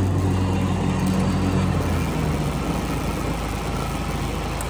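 Riding lawn mower engine running steadily while mowing, its low hum easing slightly about two seconds in.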